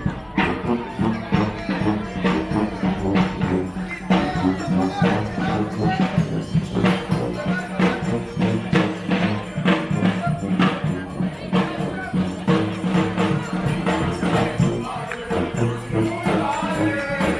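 Live street brass band playing: held horn notes over a steady drum beat.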